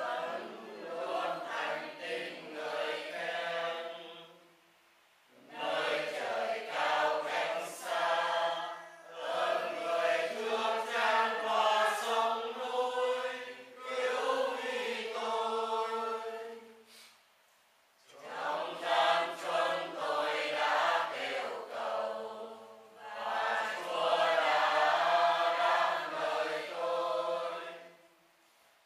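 A group of voices chanting prayers together, in long phrases broken by brief pauses for breath.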